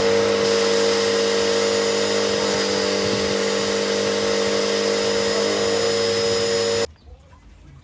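A steady electric motor of a cleaning machine running at constant speed, with a steady whine over a loud rushing noise. It cuts off suddenly about seven seconds in.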